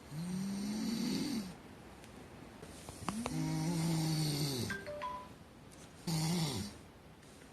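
Loud snoring: three snores, each a low pitched drone with a hissing rasp, the first two over a second long and the third shorter, with quieter breathing between them.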